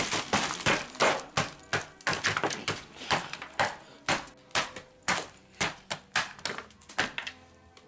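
A gingerbread house being broken apart: an irregular run of sharp cracks and knocks, about two or three a second, as stiff gingerbread slabs snap and drop onto a plastic tray, stopping just before the end.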